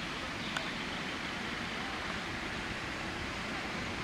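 Steady hiss of steam from a steam locomotive standing just out of view, even and without any exhaust beat; a faint tick comes about half a second in.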